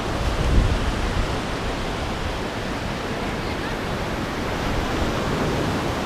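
Ocean surf washing up the shore: a steady rushing hiss, with a brief low rumble about half a second in.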